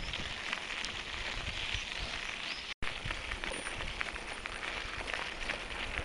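Pine forest ambience: a steady hiss with fine crackling through it, broken by a brief dropout about three seconds in.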